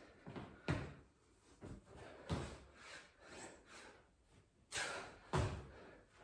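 Bodyweight burpees with push-ups on a towel over a stone floor: a handful of dull thuds as the hands and feet land, with the strongest ones near the start, about two seconds in, and twice near the end.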